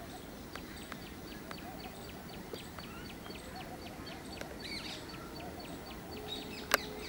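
Birds chirping: a steady series of short, high chip notes, about four a second, with a few softer chirps mixed in and a single sharp click near the end.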